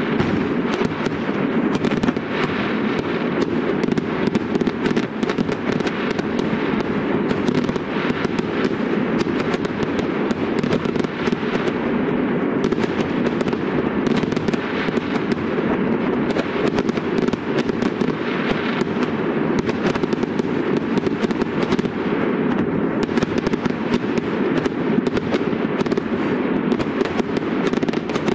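Fireworks going off in a dense, unbroken barrage of bangs and crackling, many bursts overlapping into a constant rumble with no pause.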